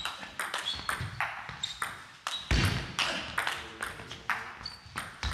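Table tennis rally in a gym hall: the plastic ball clicks back and forth off the bats and the table, each click echoing. There is a heavy thump about two and a half seconds in, and a few brief shoe squeaks on the hall floor.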